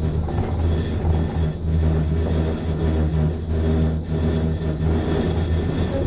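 Steady low hum and rumble heard inside a gondola cabin as it travels along its cable, with a band of hiss over it.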